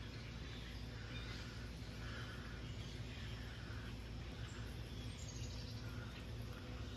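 Outdoor woodland ambience: a steady low hum and soft hiss, with faint bird chirps now and then.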